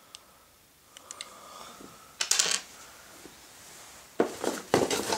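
Wooden toy trains and pieces clicking and knocking against each other and the wooden floor as they are handled and set down. A short clatter comes about two seconds in, and a run of louder knocks near the end.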